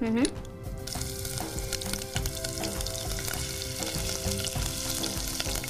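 Hot-oil tempering (tadka) sizzling in a pot: freshly added chopped ginger frying with mustard seeds and curry leaves. A steady hiss with small crackles sets in about a second in.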